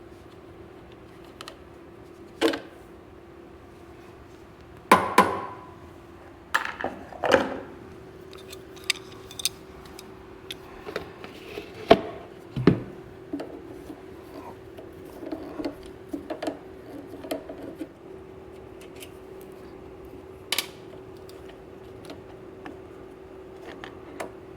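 Hand tools and metal parts clinking and knocking as fuel-system fittings are worked loose, with a cluster of sharp clacks in the first half and a few lighter taps later, over a steady background hum.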